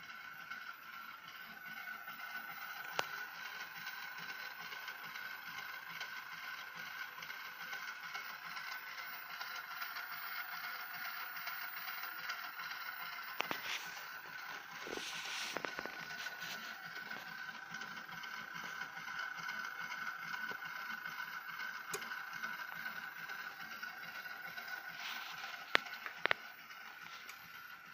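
Steady machine hum with a high tone, with a few sharp clicks and a short scraping, rustling noise about halfway through.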